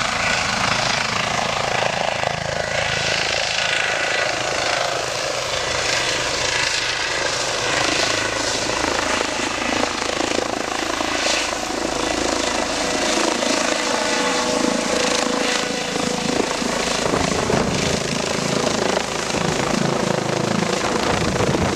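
Eurocopter EC135 air ambulance helicopter lifting off and climbing away: loud, steady rotor and turbine noise with a constant whine running through it.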